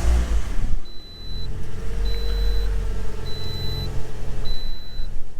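2010 Toyota Corolla's four-cylinder engine catching just after being started, then settling into a steady idle with no misfire on its new ignition coils. A high dashboard warning chime beeps over it about once every second and a bit.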